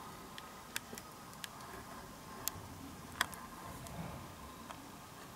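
Quiet room tone with a few faint, irregularly spaced sharp clicks.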